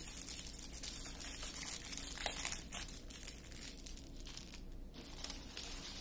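Small plastic bags of diamond painting drills crinkling as they are handled and laid down on a table, in irregular soft rustles.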